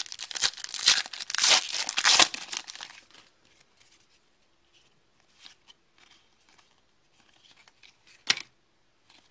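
A hockey card pack's wrapper being torn open and crinkled for about three seconds, then soft rustling of the cards being handled, with one sharp click near the end.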